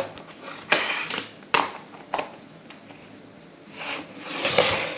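Slime squeezed and stretched by hand, making squelching, crackling noises: a few short pops in the first two seconds, then a longer squish near the end.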